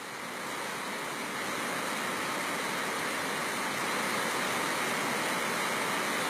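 Steady rushing noise of a fast-flowing, flood-swollen river, an even hiss with no breaks that swells slightly over the first second.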